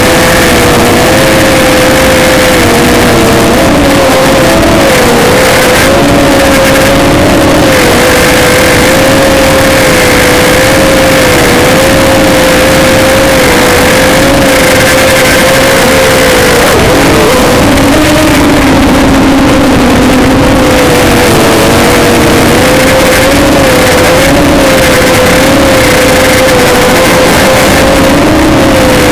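ZMR250 mini-quadcopter's electric motors and propellers whining steadily, heard from the onboard camera, very loud and distorted. The pitch wavers up and down slightly with throttle, under a constant rush of air noise.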